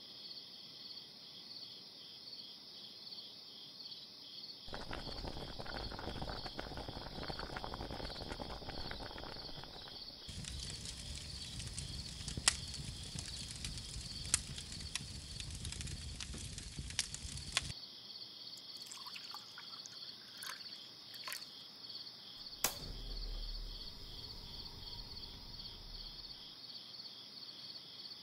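Insects chirring steadily in a fast pulsing trill. In the middle a stretch of broad rushing noise comes in for several seconds, with a few sharp clicks, then drops away suddenly.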